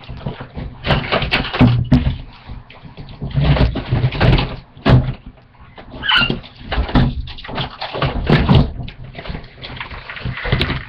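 Someone rummaging through belongings: irregular thumps, knocks and rustling as things are shifted about, a ruckus, with a brief high squeak about six seconds in.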